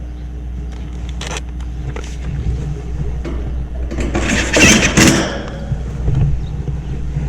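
Sheet-metal panels of an air-conditioner condenser cabinet being handled and fitted, with a short scrape about a second in and a louder scrape lasting about a second near the middle, over a steady low rumble.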